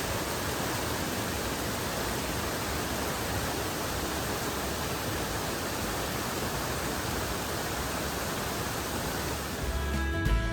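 Steady rush of a small waterfall running at high flow after heavy rain. Near the end, background guitar music comes in over it.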